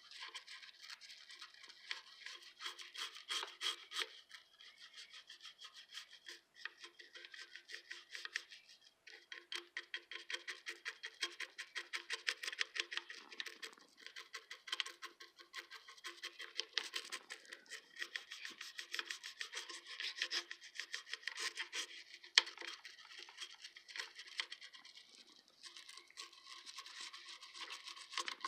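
Toothbrush bristles scrubbing a vintage sewing machine's body with waterless hand cleaner, in quick back-and-forth strokes with a few short pauses. There is one sharp click about three-quarters of the way through.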